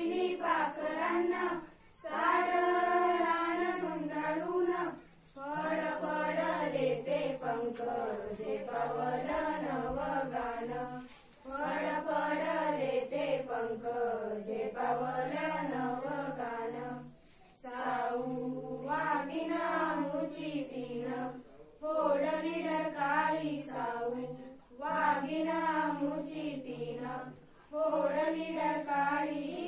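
A group of schoolchildren singing an awareness song together, unaccompanied, in phrases of a few seconds each with short breaks for breath between them.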